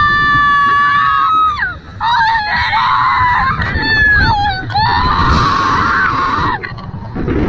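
Two young women screaming as riders on a slingshot ride: long high held screams, then a run of shorter screams that rise and fall. A steady rumble of wind on the ride's camera microphone lies under them.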